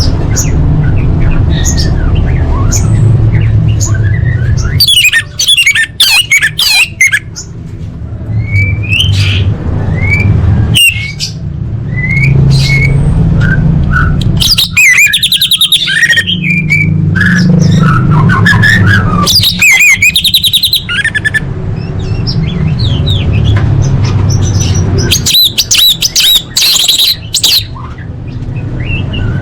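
Orange-headed thrush singing: a varied run of whistled notes and chirps, broken by fast trilling runs, over a steady low hum.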